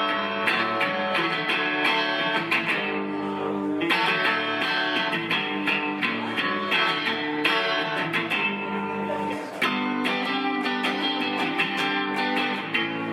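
Guitar strummed in a steady rhythm: the opening of a song.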